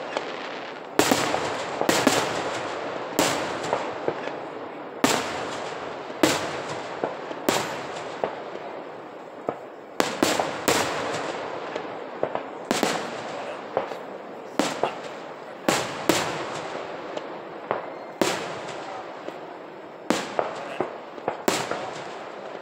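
Aerial fireworks shells bursting in quick succession, about one or two sharp bangs a second, each followed by a long echoing tail.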